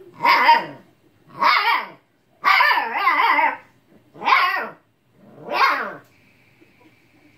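Husky puppy giving five yowling barks, each sliding down in pitch, the third the longest. It is the husky puppy's talking bark of annoyance at a cat that won't play.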